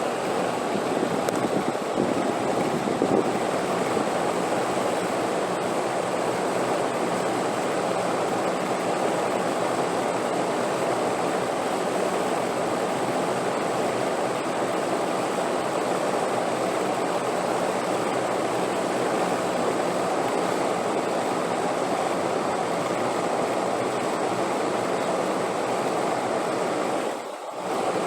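Wind blowing as a steady, even rushing noise, with a brief dip in loudness near the end.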